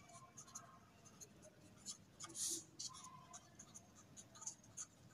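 Pen writing on paper: faint, irregular scratchy strokes of handwriting.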